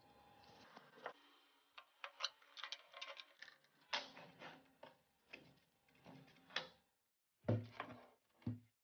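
A short rustle of a bristle paintbrush on a small cooling fan, then irregular clicks, taps and knocks from handling a stereo's transformer and power-supply circuit board on a workbench, with a few louder knocks near the end.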